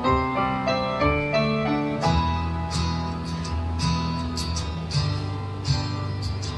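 Instrumental rock ballad music: a piano phrase gives way about two seconds in to strummed acoustic guitar over sustained bass notes.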